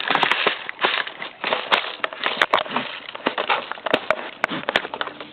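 Handling of a plastic airsoft rifle and its high-capacity magazine: irregular sharp plastic clicks and rattling, with several louder clicks.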